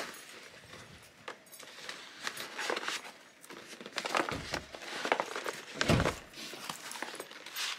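Gift wrapping paper crinkling and rustling as a present is unwrapped, with scattered small clicks and two dull thumps about four and six seconds in.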